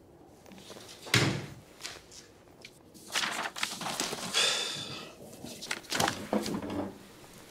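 A single heavy thump about a second in, followed by a few lighter knocks and handling or movement sounds.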